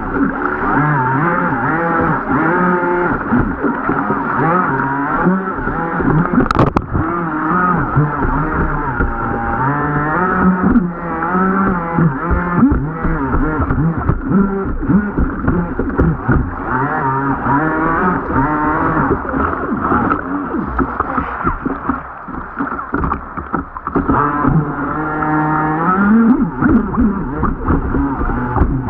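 Radio-controlled jet boat's motor running hard, its pitch rising and falling over and over as the throttle is worked, with a short click about six and a half seconds in.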